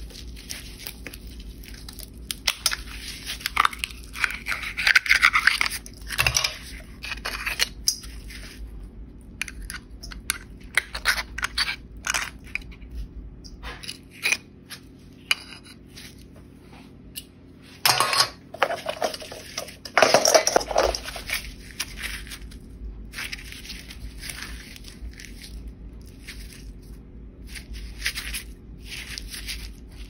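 A shucking knife prying and scraping at a raw oyster's shell: crunching, scraping and clicking of blade on shell, in bursts. It is loudest a few seconds in and again about two-thirds of the way through.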